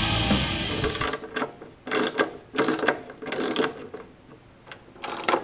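Heavy-metal guitar music that cuts off about a second in, followed by a string of short, irregular clicks and knocks, like things being handled on a tabletop.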